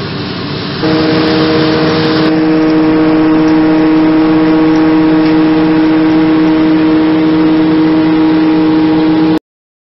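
John Deere 6630 tractor's diesel engine running steadily under load as it pulls a loaded silage trailer, a hum of several steady tones over engine noise. It comes in louder about a second in and cuts off suddenly near the end.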